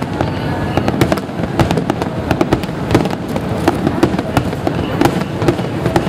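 Aerial firework shells bursting in the sky in an irregular run of sharp bangs, about two or three a second, over a continuous low rumble.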